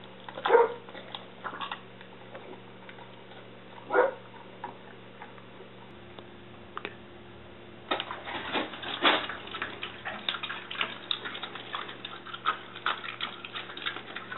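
A dog chewing a raw pork rib, with two loud bone crunches, about half a second and four seconds in. From about eight seconds in, a rapid run of light clicks and taps follows.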